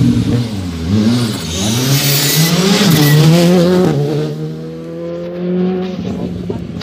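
Rally car engine revving hard through a bend, its pitch dipping and rising as the driver works the throttle, then climbing as the car accelerates away, with a rush of noise as it passes about two seconds in. It settles to a steadier, fainter note for the last couple of seconds.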